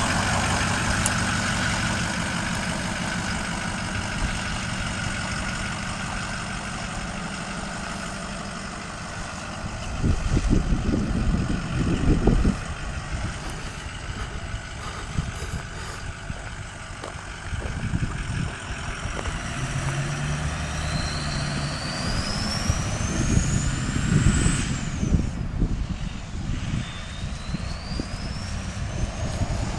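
Ford 6.0 L Power Stroke turbo-diesel engine in a 2005 F-350 Super Duty running under load, with the turbocharger whistling: a high whistle rises in pitch, cuts off sharply about 25 seconds in, then rises again near the end. Low rumbling gusts come and go over the engine.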